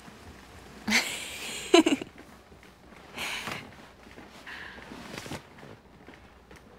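A young woman's soft, breathy laughter: a longer breath about a second in that ends on a short voiced note, then a few quieter breathy puffs.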